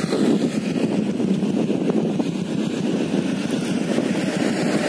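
Wind buffeting the microphone: a steady, unevenly fluttering rumble.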